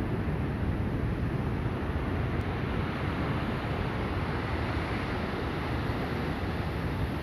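Steady wind rushing over the microphone, mixed with the sea's surf: a low, even rush with no distinct events.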